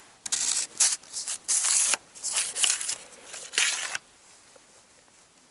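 Close, dry rustling and brushing in a quick run of bursts for about four seconds, then it stops: branches, grass and clothing brushing as someone pushes along a bushy riverbank.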